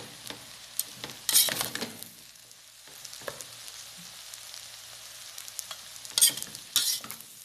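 Metal spoon stirring and scraping a rice, sausage and vegetable mixture in a metal pan over the heat, with a low sizzle underneath. Two louder scrapes of the spoon against the pan, about a second and a half in and again near the end.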